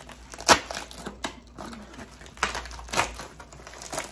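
Plastic mailer bag crinkling and tearing as it is opened by hand, with a sharp rip about half a second in and another near three seconds.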